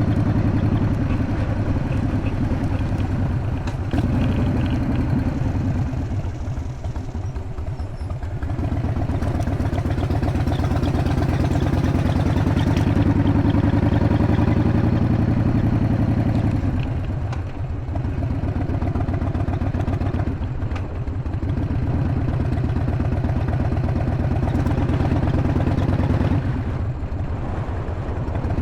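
Harley-Davidson Evolution V-twin engine running with a dense, steady pulse. Its level dips briefly and comes back up several times, about four times over the stretch.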